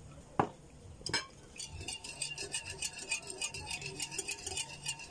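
Wire whisk beating a creamy milk mixture in a glass bowl. Two sharp clinks of the whisk on the glass come in the first second or so. Then the wires click against the bowl rapidly and steadily, several times a second.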